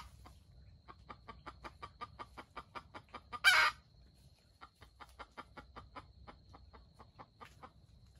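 Junglefowl (wild chickens) giving a rapid run of short clucks, about five a second, that stops near the end, with one loud harsh call about three and a half seconds in.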